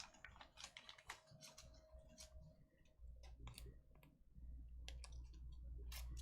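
Faint, irregular clicks and taps from trading cards being handled. A low hum comes in a little past four seconds.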